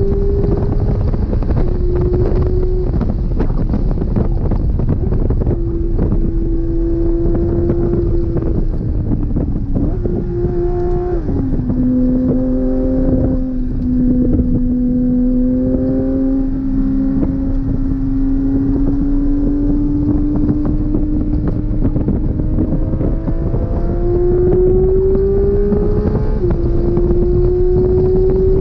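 Porsche 992 GT3 RS's naturally aspirated flat-six running hard on track. Its pitch climbs and drops sharply at each gear change, with one long, steady climb in the middle, over a constant rush of wind and road noise.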